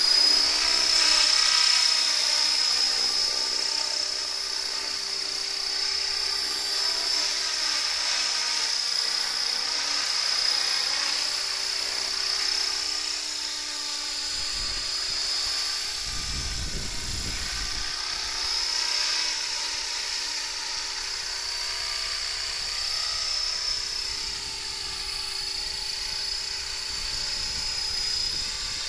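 Align T-Rex 500 flybarless electric RC helicopter in hover flight: a steady high-pitched whine from its motor and drivetrain over the rotor noise, wavering slightly in pitch as the throttle and blade loading change.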